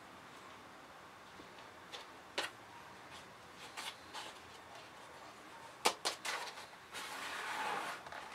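Hands handling compost and a small plastic pot: scattered light taps and rustles as cuttings are set and firmed in, then a longer scraping rustle near the end as compost is scooped across a plastic potting tray.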